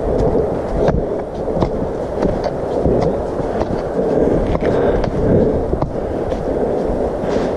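Footsteps and trekking-pole strikes on a leaf-strewn dirt trail, a sharp tap about every 0.7 s, over a steady rough rumble of movement and rubbing against the microphone.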